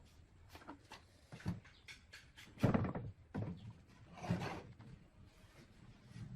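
Wooden pieces knocking and clicking together in an irregular run of light knocks, with a louder thump near the middle and another about a second and a half later.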